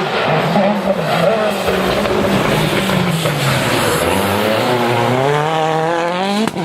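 Citroën DS3 WRC rally car's 1.6-litre turbocharged four-cylinder engine driven hard, its revs falling and climbing twice. It ends in a steep climb cut off by a sharp gear change near the end.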